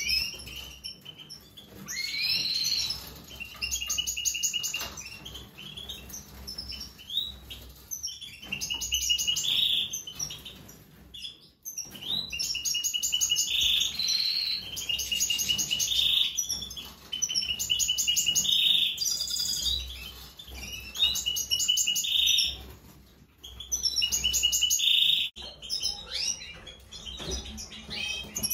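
European goldfinch singing: phrases of fast twittering trills and sharp notes, each one to three seconds long with short pauses between them.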